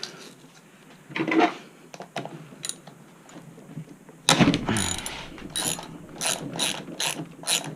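A hand ratchet tool clicking as a bolt is turned loose: a loud knock about four seconds in, then a steady run of about three clicks a second.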